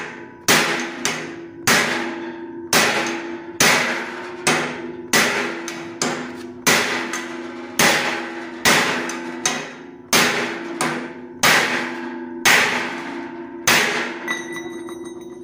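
Steel hammer blows on a leaf-spring plate, driving a steel bearing cup into the steering head tube of a steel chassis until it sits flush. A steady run of sharp strikes, about one and a half a second, each ringing, stopping shortly before the end.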